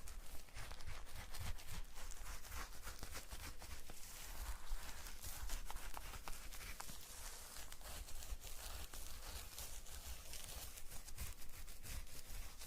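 Close-miked ASMR trigger sounds: continuous soft crackling and rustling, made of many irregular small clicks over a light hiss.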